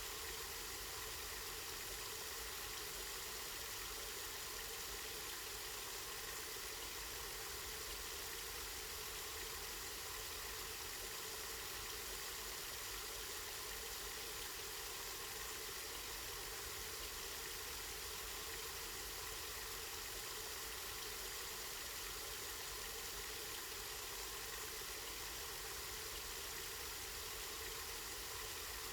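Water from a spring running steadily: an even, unbroken hiss of flowing water.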